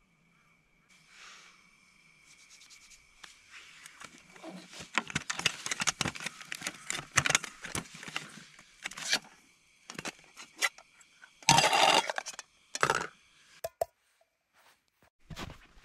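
Metal camping cookware being handled on a camp table: a pot, its lid and a mug clink, rattle and scrape in a quick run of knocks, with one louder clatter about twelve seconds in.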